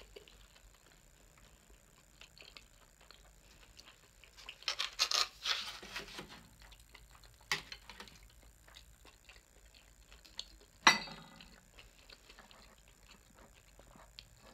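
Clear plastic sushi takeout tray handled, crinkling and clattering for a couple of seconds about four to six seconds in, among small mouth and handling ticks. A single sharp knock about eleven seconds in.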